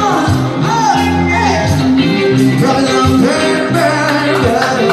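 Band music with a singer over steady bass notes and guitar, playing without a break.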